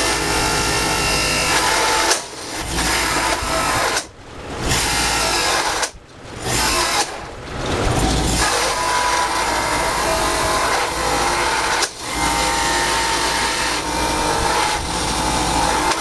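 Electric power tool running while cutting a wooden bowl blank. Its sound drops off sharply and comes back about two, four, six and twelve seconds in.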